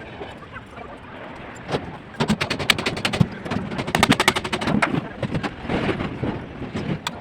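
Two quick runs of sharp clicking knocks, about ten a second: one about two seconds in and another about four seconds in, over a background of irregular clattering work noise.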